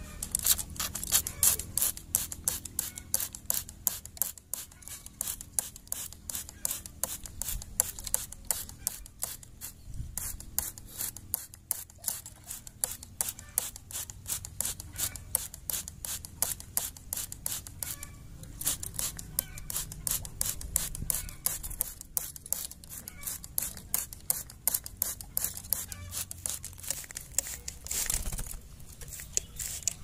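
Hand-held pump sprayer squirting water into a birdcage in quick repeated pumps, about three a second, pausing briefly now and then.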